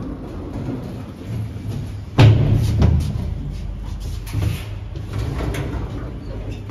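Clunks and knocks of luggage being moved over a steady low hum. The loudest is a sharp knock about two seconds in, followed by a few softer clunks.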